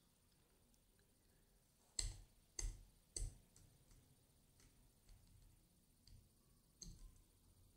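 Three sharp clicks about two seconds in, roughly half a second apart, and a fainter one near the end, over near silence.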